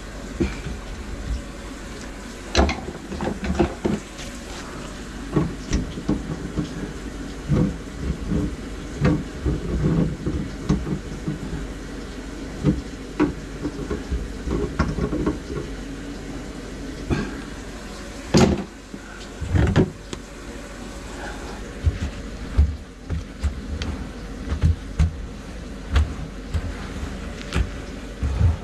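Electric drain-cleaning machine running with its cable in a grease-clogged kitchen drain line: a steady low hum under irregular knocks and rattles, the sharpest a little past the middle.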